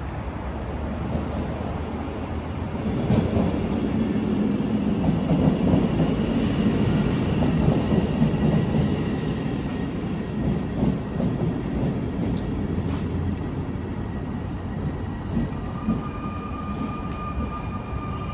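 Stadler KISS double-decker electric train pulling into a station. The rumble of its wheels on the rails builds over a few seconds, then eases as it slows. A steady high tone sets in near the end as it comes to a stop.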